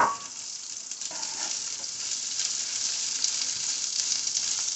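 Sliced onions and sweet peppers sizzling steadily in hot avocado oil in a frying pan, with a sharp knock at the very start and a utensil stirring the vegetables near the end.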